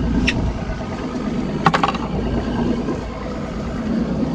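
A boat's outboard engine running at idle, with wind and water noise, and two sharp knocks, about a third of a second and just under two seconds in.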